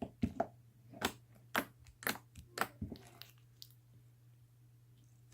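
Overactivated slime being squeezed and stretched by hand, giving a series of sharp crackles and pops, about two a second over the first three seconds.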